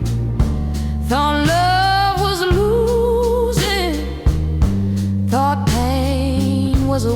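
Slow blues music: sustained bass and chords under a lead melody line with heavy vibrato that bends in pitch, in two phrases.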